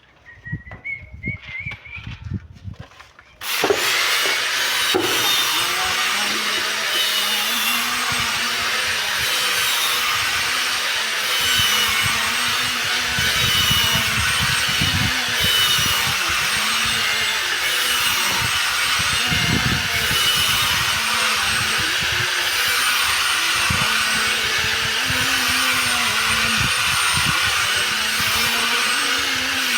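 A few faint knocks, then about three and a half seconds in an electric power tool starts abruptly and runs steadily, grinding on stone with a faint high whine over a steady rasp.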